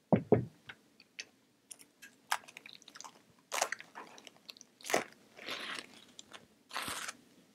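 Handling noise: two dull knocks right at the start, then scattered light clicks and several short crinkling, rustling bursts.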